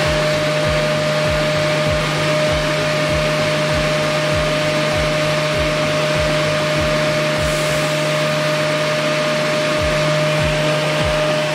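Woodworking milling machine for door and window frames running steadily: a loud even rush of noise with a constant whine, and a regular low thump about three times a second.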